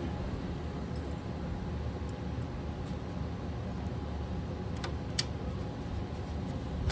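A few small clicks of screws being fitted to lock the sharpy light's bulb and retaining plate, the sharpest a pair about five seconds in, over a steady low background hum.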